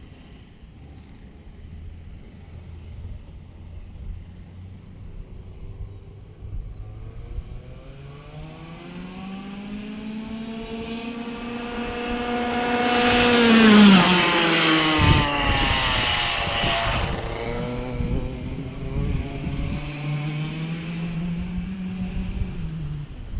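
A race car's engine passes at speed: its note climbs and grows louder as it approaches, is loudest about fourteen seconds in, then drops sharply in pitch as it goes by. The engine note then climbs again as it pulls away and falls off near the end.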